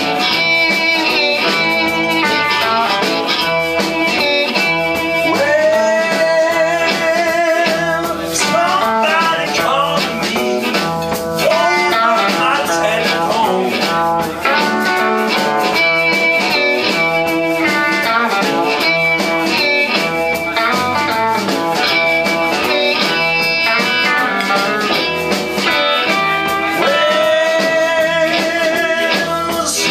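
Live electric blues band playing: electric guitar, bass guitar, drums and amplified blues harmonica, with long wavering held notes and a male voice singing into the microphone.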